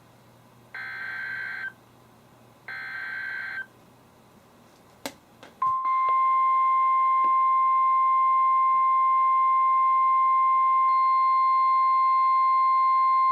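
NOAA Weather Radio emergency alert coming through a weather radio's speaker: the last two of the three short EAS/SAME digital header bursts, about a second each and two seconds apart, then a click and, about five and a half seconds in, the steady 1050 Hz warning alarm tone. This header and tone signal that a new warning, here a severe thunderstorm warning, is about to be broadcast.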